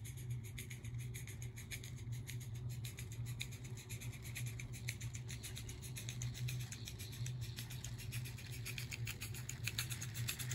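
Small live-steam garden railway locomotive running past with a short train of wagons, giving a fast, regular ticking several times a second over a steady low hum.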